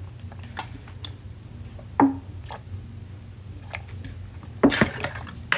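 A person drinking from a large plastic water bottle: soft swallowing clicks and small bottle noises, with louder gulps about two seconds in and near the end, over a steady low hum.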